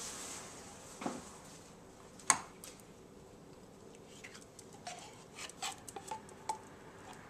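A metal soup can knocking and clinking against the rim of a stainless steel saucepan as condensed soup is tipped out of it: one sharp clank about two seconds in, then several lighter taps.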